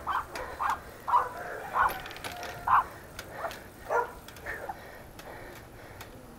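A dog barking repeatedly: about eight short, sharp barks over the first four and a half seconds, the last few fainter, then stopping.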